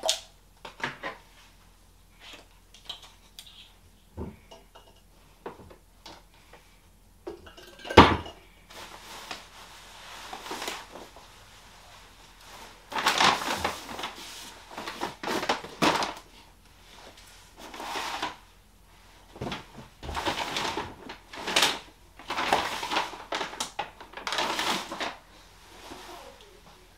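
Rustling and crinkling of plastic-packaged bedding and bags being pulled from a pile and handled, in repeated bursts, with a single sharp knock about eight seconds in, the loudest sound.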